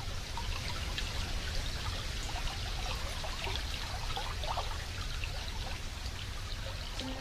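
Ambient running water: a steady rushing hiss with scattered drips and trickles, like a stream flowing over rocks.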